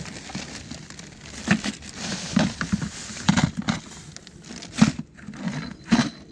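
Plastic bags crinkling and rustling in uneven spurts as they are handled and pulled out of a bucket.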